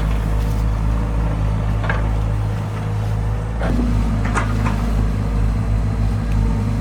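A heavy engine running steadily with a deep hum, with a few sharp clanks and knocks, about two seconds in and again near the middle.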